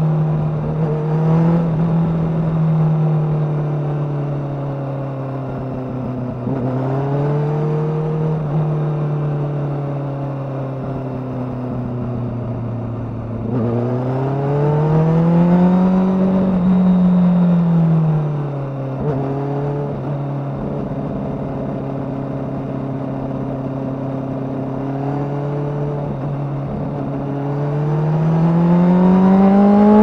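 Kawasaki ZX-6R's inline-four engine through a Yoshimura undertail exhaust, running at a steady mid-range engine speed and three times climbing smoothly in pitch and easing back down, the last climb near the end.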